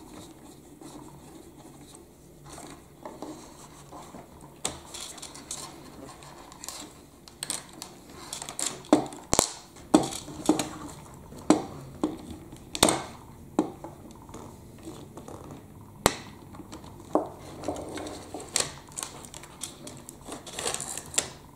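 Hard plastic parts of a toy telehandler's boom clicking, snapping and knocking as they are prised apart by hand, with a run of sharp clicks in the middle.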